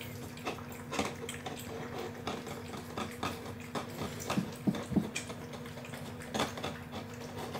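Cat licking and eating leftover watered-down wet cat food from a bowl: a string of quick, irregular wet lapping clicks, over a steady low hum.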